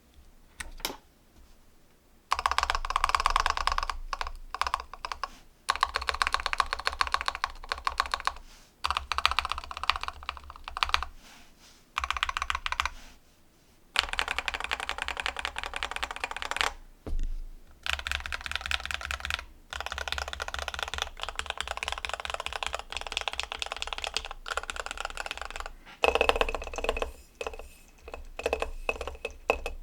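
Continuous typing in bursts on a custom LZ-GH mechanical keyboard: lubed JWK Alpaca v2 linear switches in an aluminum plate, PBT keycaps, and a sorbothane sheet under the PCB to damp the sound. A lone keystroke comes first, then runs of rapid key strikes with brief pauses between them.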